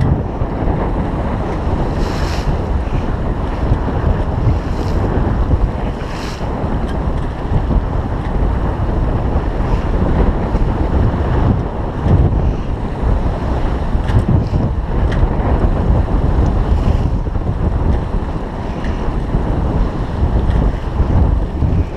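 Wind buffeting the microphone over the rush of water along the hull of a Pearson Triton sloop sailing through chop, with a few brief louder rushes of water.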